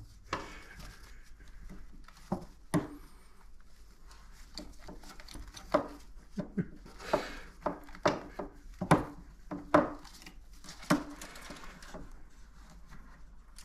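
Irregular taps, knocks and scuffling on a wooden toy dollhouse as a green-cheeked conure tussles with a budgie held against it by hand, with the sharpest knocks about 3, 9 and 10 seconds in.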